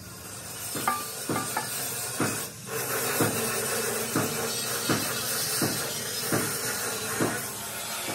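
Hammer blows on a steel plate, about ten regular strikes at a little over one a second, over a steady hiss.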